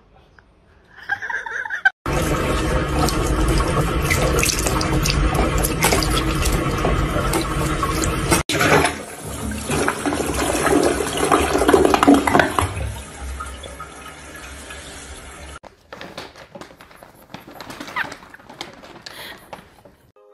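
A toilet flushing: loud rushing and swirling water that runs for several seconds, then dies away about three-quarters of the way through.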